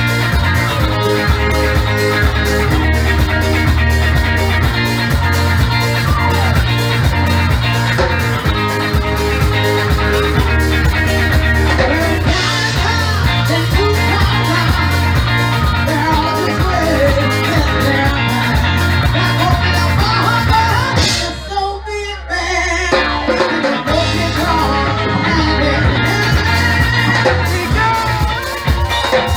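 Calypso band music: a steady, repeating bass line under guitar and melody. About three-quarters of the way through, the bass drops out and the music thins for a second or two before the band comes back in.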